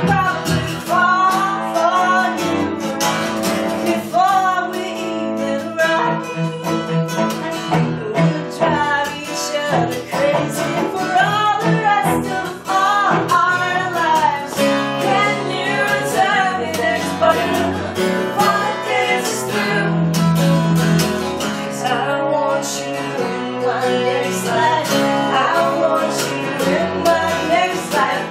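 Live acoustic music: a steel-string acoustic guitar strummed with a bowed cello playing along.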